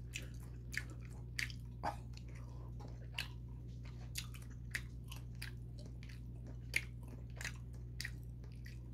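Mouth chewing a bite of beef sirloin topped with cheese, with irregular soft wet clicks, about one or two a second.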